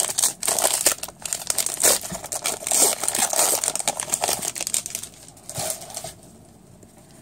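Foil trading-card pack wrapper crinkling and tearing as it is ripped open and the cards are pulled out. The rustling stops about six seconds in.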